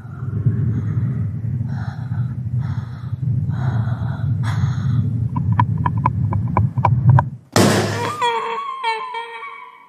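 Horror-film sound design: a loud, low rumbling drone with gasping breaths about once a second, then a quick run of sharp clicks. About three-quarters through comes a sudden loud hit, followed by a wavering high-pitched cry that fades away.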